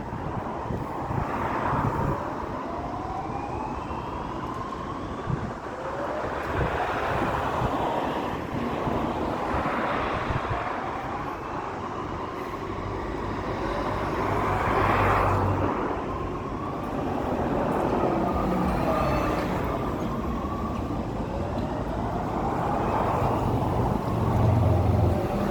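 Fire alarm sounder giving a rising sweep tone, repeating about every two to three seconds, over a steady background of road traffic.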